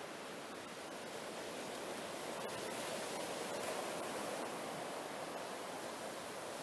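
Ocean surf breaking and washing up a sandy beach: a steady rush of waves that swells a little around the middle.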